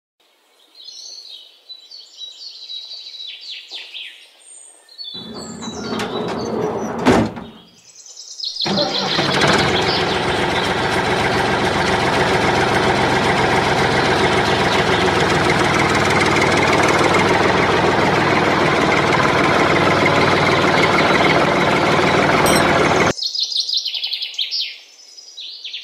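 Birds chirping. Then a motor runs steadily for about fourteen seconds, loud and even, and cuts off suddenly. Birds chirp again near the end.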